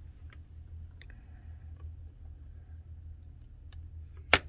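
Small clicks of metal tweezers and plastic parts as a circuit board's ribbon-cable connector is worked, a few faint ones and then one sharp, loud click near the end.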